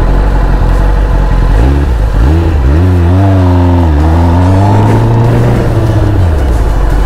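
Kawasaki ZX-10R superbike's inline-four engine under way, its note climbing, dipping and climbing again as the bike slows and speeds up, then dropping away near the end, over a steady road and wind rush.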